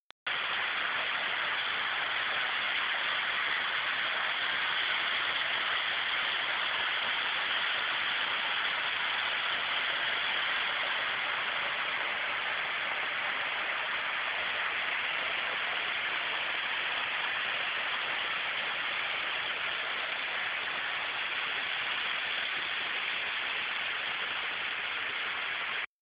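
A waterfall's steady rush of falling water, an even noise that does not change.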